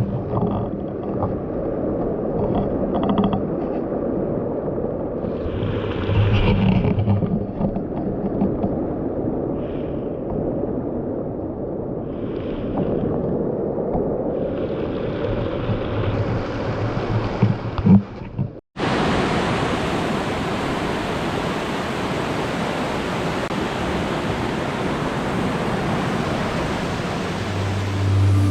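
Steady rushing roar of a waterfall. For most of the stretch it is dull and uneven, with swelling gusts; after a sudden break about two-thirds of the way through, it comes back as a full, bright, even rush of falling water.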